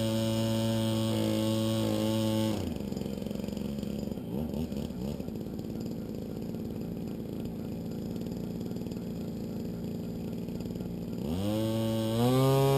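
Engine of a 1/4-scale RC biplane, heard close up from a camera on the plane, running steadily on the ground. It is throttled back to a lower, quieter idle about two and a half seconds in, and revved up again with a rising pitch near the end.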